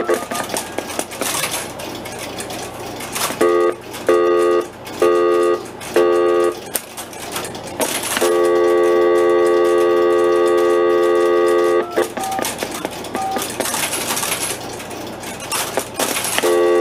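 Crossbar telephone exchange relays and switches clicking and chattering as a call is set up. A buzzy call-progress tone from the switch is the loudest sound: it breaks off at the start, returns as four short beeps about a second apart, runs steady for about four seconds, and comes back near the end.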